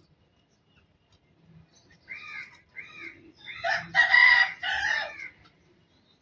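Barred Rock rooster crowing once: two short notes about two seconds in, then a loud, longer drawn-out call ending a little after five seconds.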